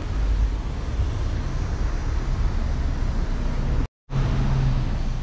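Steady low rumble of car and wind noise picked up by a camera mounted on the car's body. The sound cuts out for a moment about four seconds in, then resumes.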